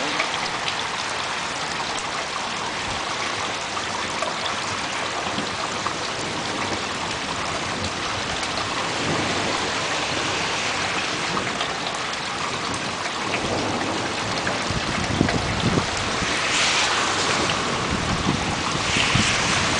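Steady hiss of heavy rain during a thunderstorm, with a low rumbling that comes in about three quarters of the way through.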